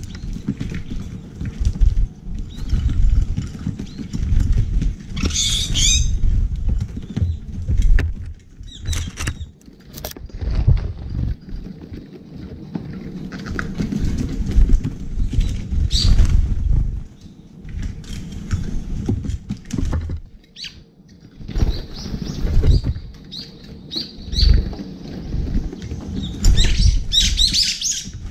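Small birds feeding at a metal tray feeder: Eurasian tree sparrows and doves pecking seed from steel bowls and shuffling on the tray, making many scattered taps and scuffles. Bursts of high chirping calls come about five seconds in and again near the end.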